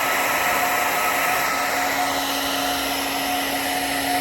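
Electric hot-air blower running steadily, a rushing blow with a constant whine through it. It is heating freshly sprayed wrinkle-black paint so that the finish will wrinkle in the cold.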